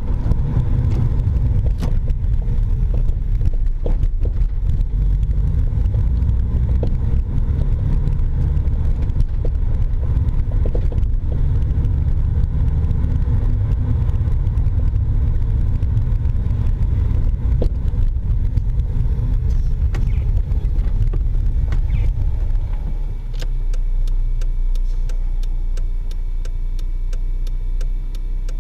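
Low road and tyre rumble from a Toyota MR2 Spyder driving over uneven road, with scattered sharp clunks from its BC Racing BR-type coilover suspension: a knock that remains after every bolt and nut has been checked, its cause not yet found. About three quarters of the way through the rumble drops and a regular ticking starts.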